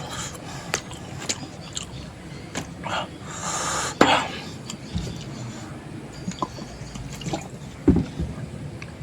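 Close-up wet eating sounds: chewing, lip smacks and sharp mouth clicks while eating spicy curry, with a longer hissing sound around three and a half seconds in.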